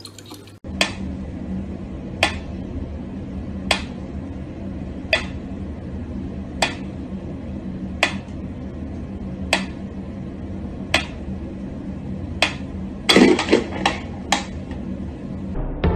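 Mechanical pendulum metronome ticking slowly and evenly, one tick about every second and a half. Near the end a brief cluster of louder knocks and thumps breaks in.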